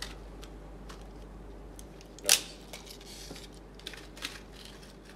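Small clicks and taps of a coil tattoo machine and its needle being handled as the outline needle is taken off. One sharper click comes a little over two seconds in.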